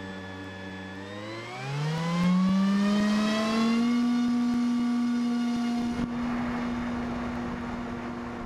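HobbyKing Bixler's electric brushless motor and pusher propeller running with a steady whine at low throttle, then throttled up between about one and two and a half seconds in to a higher, louder whine that holds. From about six seconds in, a rush of airflow joins it as the plane is launched into flight.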